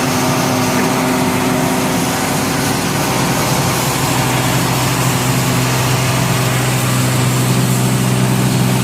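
SMF 610 PE/PP plastic pulverizer (disc milling machine) running steadily: a loud, even mechanical hum under a dense grinding hiss, its hum tone shifting slightly about three seconds in.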